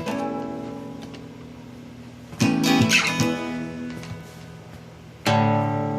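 Acoustic guitar closing out the song: strummed chords left to ring and fade, a new one about every three seconds.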